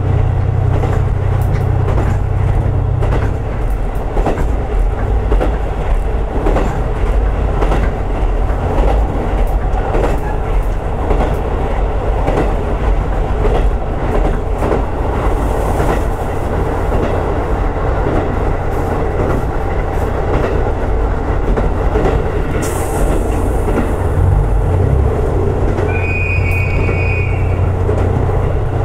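Diesel railcar running along the track, heard from inside the car: a low engine drone with the wheels clicking over rail joints. The drone eases off about three seconds in and comes back near the end, and a brief high tone sounds shortly after it returns.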